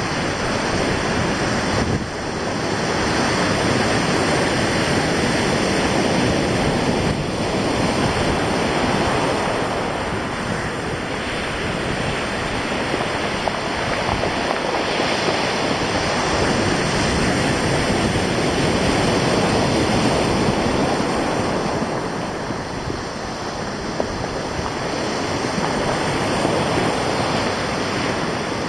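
Sea surf washing in and breaking on a stony beach, rising and falling in slow swells, with wind over the microphone.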